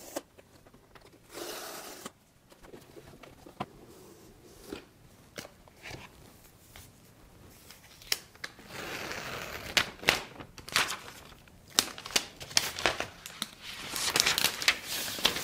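Unboxing an iPad Pro: the paper tear strip ripping off the box about a second and a half in, then light taps and knocks of the box and tablet being handled. The tablet's paper wrap rustles and crinkles as it is peeled off, most strongly near the end.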